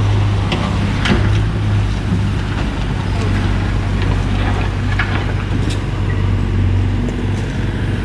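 Hyundai 55 wheeled excavator's diesel engine running with a steady low hum while the bucket works the ground. A few short knocks of rubble and metal come about one second in and again around five and six seconds in.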